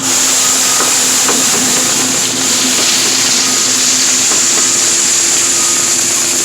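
Skid steer running with its pickup broom attachment spinning, the bristles sweeping loose stone off asphalt into the bucket: a loud, steady hiss over the machine's engine and hydraulic hum. Faint reversing beeps sound now and then.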